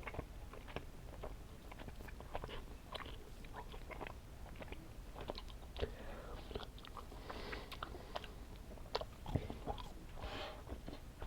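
Close-up mouth sounds of someone chewing sticky Laffy Taffy: irregular small wet clicks and smacks, with a few louder ones scattered through.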